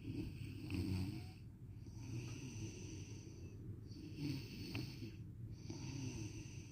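A person snoring in long, drawn-out breaths, about four in a row, each about a second and a half with a short pause between.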